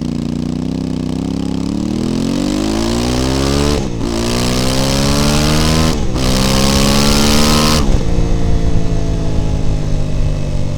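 Voge DS 800 Rally's parallel-twin engine through a Scorpion exhaust with the baffle removed, accelerating hard: the note climbs through the gears with three quick upshifts, about four, six and eight seconds in, then settles to a steady note at cruising speed. Wind rushes over the microphone.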